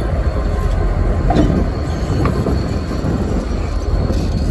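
Diesel locomotive running light, rolling slowly past at close range with a steady low rumble. The wheels give short squeals about a second in and again about two seconds in.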